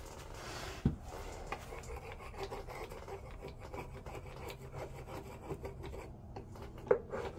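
Paper towel rubbing and wiping stripper-softened paint off a wooden nightstand top, a run of light scratchy strokes. Two sharp knocks come through, about a second in and near the end.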